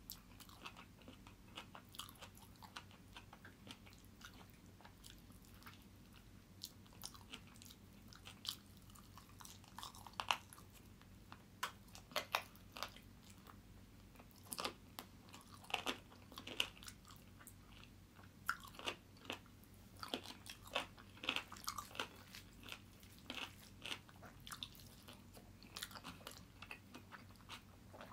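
Close-miked chewing of chicken cheese kottu, eaten by hand: a run of short, irregular mouth clicks that grow denser and louder from about ten seconds in, over a faint low hum.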